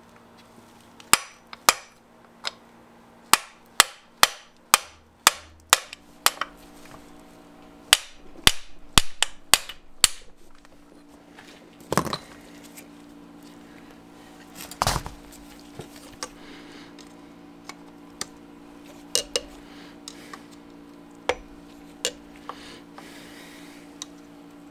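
Hammer blows on metal, pounding a stuck wrist pin out of a Yamaha 650 jet-ski engine piston: a quick run of a dozen or more sharp strikes in the first ten seconds or so, then scattered lighter knocks and taps.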